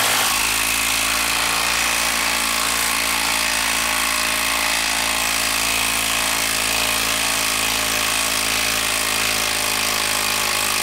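Hilti SID 2-A 12-volt impact driver hammering steadily under heavy load as it turns a large TimberLOK timber screw out of a wooden log. The rapid impacts run as one even, unbroken rattle, the sign of a tough fastener.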